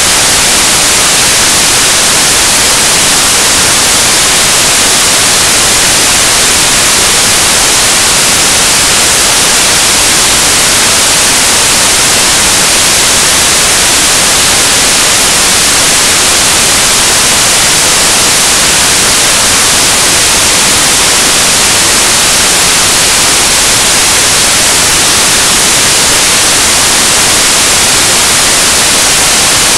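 Loud, even static hiss that never changes, covering every other sound; no ball bounces or voices come through.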